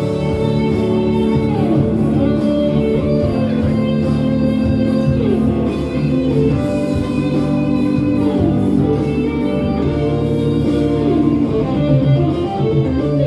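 Instrumental music led by guitar, with sustained notes and sliding bends over a steady bass.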